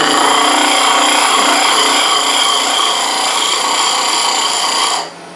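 An old hole saw with its teeth ground off, held as a scraper against a wooden sphere spinning on a lathe: a loud steady scraping with a ringing whine through it, which stops near the end as the tool is lifted off, leaving the lathe's low hum.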